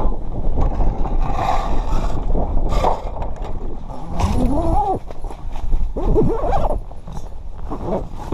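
Strong wind buffeting the microphone in a steady low rumble. Over it come a few brief squeals that rise and fall in pitch, the clearest rising steeply about four seconds in.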